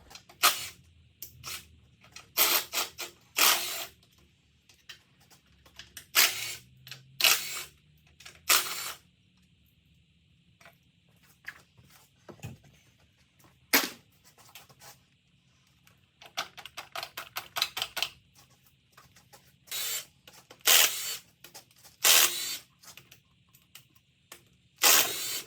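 Hand tools working on the top of a 6.0 L LQ9 V8 as the coil packs and valve cover come off: short runs of ratchet clicking and metal parts clanking, in separate bursts with pauses between them.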